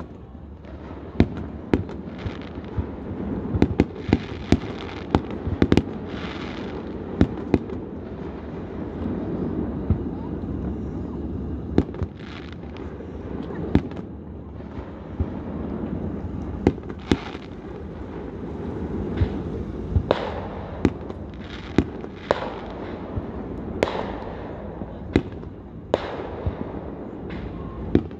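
Amateur aerial fireworks going off in quick succession: many sharp bangs at irregular intervals, often about a second apart, over a steady noisy background.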